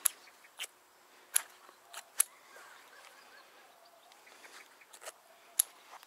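Hydraulic hose quick-coupler fittings handled in gloved hands: a few short, sharp metallic clicks, spaced irregularly, over a quiet background.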